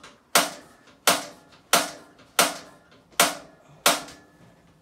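Spark igniter of a propane RV oven clicking six times, about once every 0.7 s, each click sharp with a short ring. It is trying to light the oven pilot, which has not yet caught.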